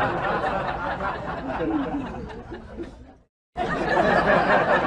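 Many voices chattering and laughing together. The sound fades away, cuts out completely for a moment a little after three seconds in, then starts again just as loud.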